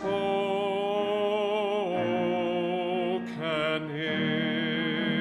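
A man singing the closing phrase of a sacred song with piano accompaniment: a long held note with vibrato on "hath", moving to "spoken" near the end.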